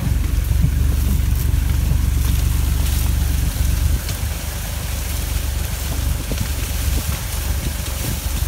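Farm tractor engine running steadily while towing a trailer, a low rumble with wind buffeting the microphone; it eases off a little about four seconds in.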